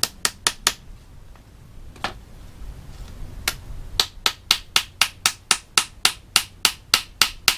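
Small hammer tapping a nail into a wooden frame batten: a quick cluster of four taps at the start, two single taps, then a steady run of about three to four taps a second through the second half.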